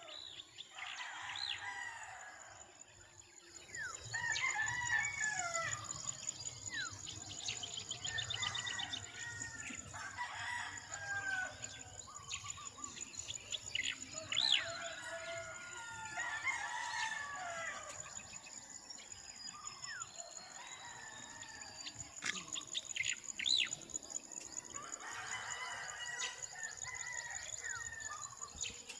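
Roosters crowing again and again, with clucking and small birds chirping in between, over a steady high-pitched whine.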